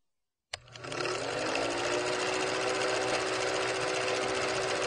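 Film projector sound effect: a rapid, even mechanical clatter with a steady hum, starting with a click about half a second in, the hum rising slightly in pitch as it gets going.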